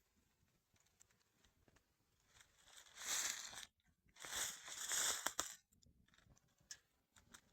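Rustling, crinkling noise in two bursts, one about three seconds in and a longer one about a second later, over faint background.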